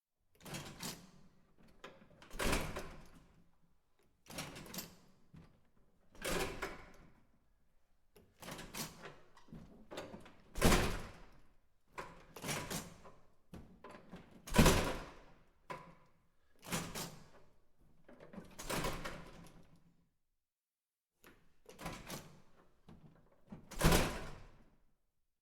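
A door being shut again and again, about a dozen thuds spaced roughly two seconds apart, each with a short rattle or swing before it, and a brief pause shortly before the end.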